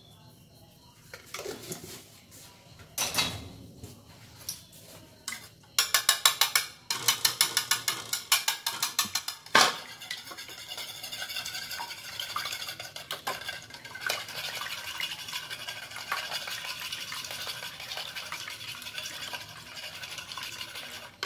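Raw eggs being beaten with a metal spoon in a ceramic plate: a few separate taps, then a fast run of clinks of the spoon against the plate, then a steady swishing stir as the yolks and whites blend together.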